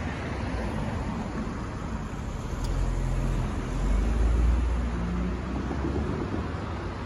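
Street traffic: cars driving past close by, their engine and tyre rumble swelling to its loudest about four seconds in as one goes by, then easing.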